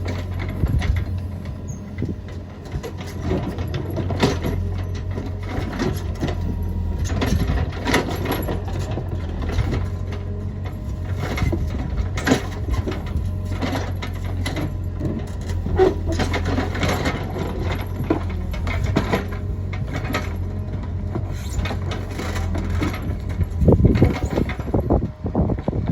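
Caterpillar 432F2 backhoe loader's diesel engine running steadily under work, with frequent short knocks and scrapes throughout and a louder cluster of knocks near the end.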